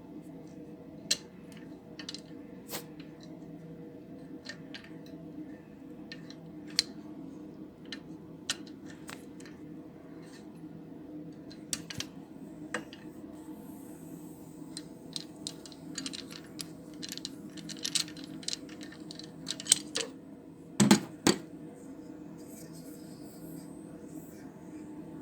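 Small metal tools and parts clinking and tapping against metal at irregular moments, with two louder knocks close together near the end, over a steady low hum.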